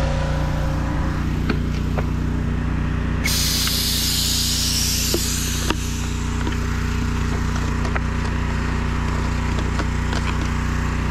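Gas pressure washer engine running steadily. About three seconds in, a sharp hiss of air escapes for a couple of seconds as the pressurised hand-pump sprayer's pump top is unscrewed, with a few light plastic clicks from the sprayer.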